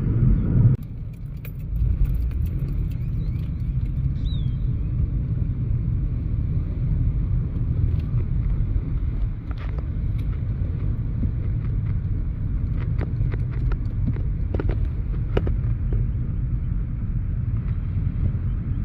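Steady low rumble with a few faint clicks and knocks; a louder rumble drops off suddenly about a second in.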